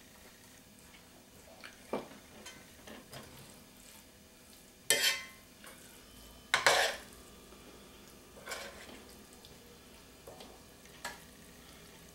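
Metal spoon scraping and clinking in a cast iron skillet while scooping up pork and cabbage filling. It comes as scattered short clinks, with two louder scrapes about five and seven seconds in.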